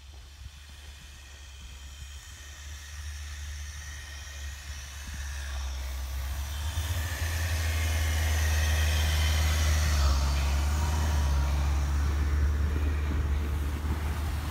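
Nissan Qashqai 2.0 dCi 4x4's four-cylinder turbodiesel engine pulling through deep snow, with the tyres churning and spraying snow. It grows steadily louder as the car approaches and is loudest through the second half as it passes close by.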